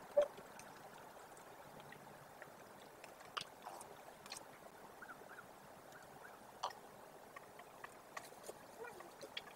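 Common ravens calling: a single short croak just after the start, then scattered sharp clicks and a few faint high chirps over quiet outdoor background.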